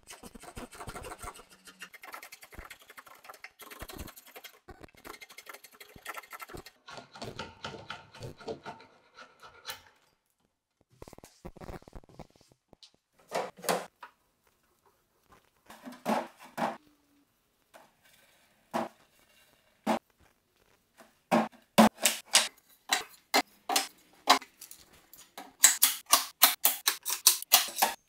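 Steel scraping on wood as glue squeeze-out is worked off an end-grain cutting board glue-up. Later come separate metallic clicks and knocks of pipe clamps being set on the glued boards, ending in a fast run of loud clicks as the clamps are slid and tightened.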